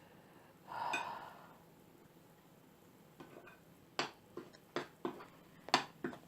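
Spoon clicking against a bowl as the marinade is stirred: scattered sharp clicks that come closer together near the end, after a brief soft whoosh about a second in.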